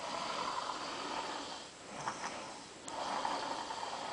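A sleeping person snoring: two long, noisy breaths, the second starting about three seconds in, with a short snuffle between them.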